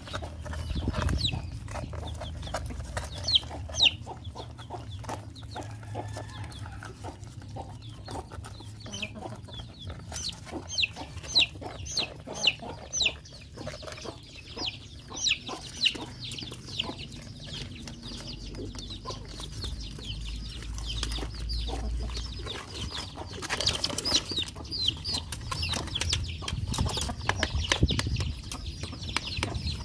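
Chickens clucking, with many short high falling peeps throughout, over small clicks and chewing from puppies eating out of a metal basin.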